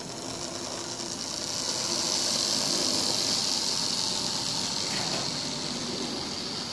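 Lima OO-gauge model BR Class 40 diesel locomotive running on the track with its train of wagons: a steady motor whirr and wheel noise, a hissing rush that grows louder over the first two seconds or so as the train passes close, then eases slightly.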